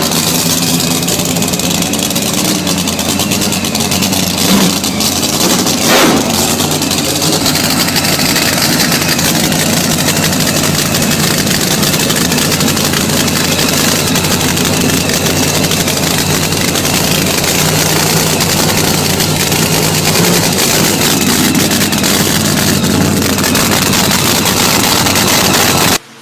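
Loud engine running steadily, with a single sharp crack about six seconds in.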